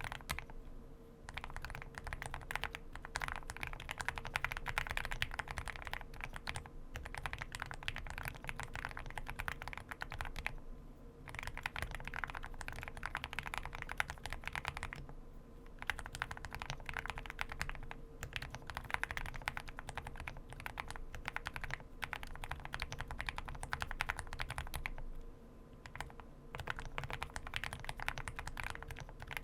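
Typing on an Owlab Spring custom mechanical keyboard with Everglide BeesWax linear switches and PBT double-shot keycaps: a fast, continuous stream of key presses, stopping briefly every few seconds.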